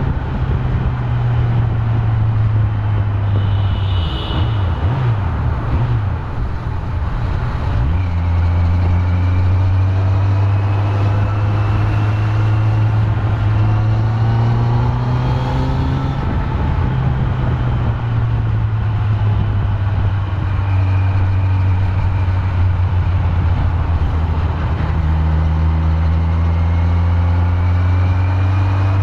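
Kawasaki Z900's stock inline-four engine running under riding load, its note climbing slowly as the bike accelerates, with an unsteady break in the note about four to eight seconds in and another climb near the end.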